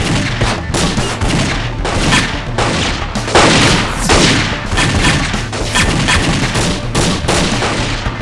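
Rapid gunfire in a shootout, a string of handgun shots several a second and loudest about three to four seconds in, over a steady music bed.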